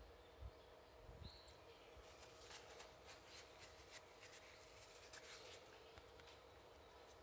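Near silence with faint handling noise: a couple of soft low bumps near the start, then a run of quick faint scratchy rubbing strokes in the middle as a cloth wipes a small plastic ball link held on a screwdriver shaft.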